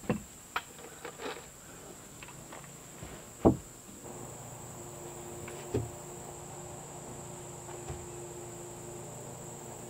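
Scattered wooden knocks and clicks of boards and tools being handled on a timber outhouse frame, the loudest about three and a half seconds in, over a steady high insect buzz.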